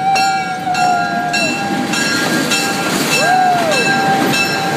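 ALCO FPA-4 diesel locomotives of the Napa Valley Wine Train passing at close range, their engines running under a loud, steady din. A held steady tone sounds over it in the first second and a half, and a short rising-and-falling tone about three seconds in.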